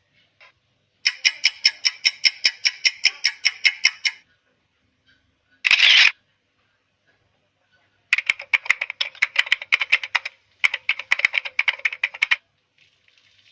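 Sound-effect clips of quick, evenly spaced clicking: a run of about three seconds, a single short burst of noise about six seconds in, then two more runs of clicks separated by a brief gap.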